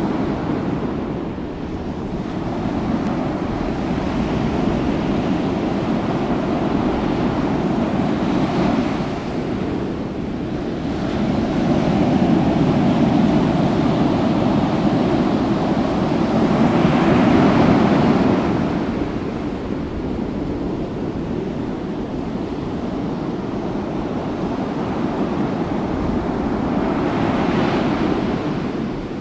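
Ocean waves and wind: a steady rushing wash with no engine tone, swelling and easing every few seconds, with a bigger surge building a little past the middle and falling away.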